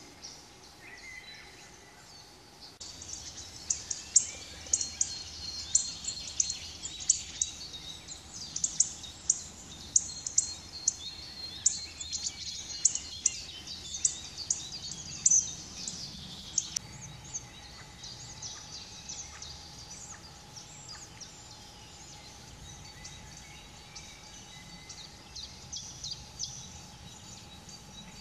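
Songbirds calling and singing in a spring forest: a dense run of sharp, high calls, several a second, starts about three seconds in and thins out to fainter calls after about seventeen seconds.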